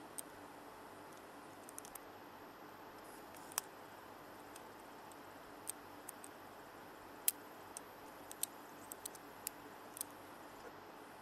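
A lock pick and tension wrench working inside an AMIG padlock's keyway while it is being picked: faint, irregular metal clicks and ticks, about fifteen spread out, the sharpest about seven seconds in, over a low hiss.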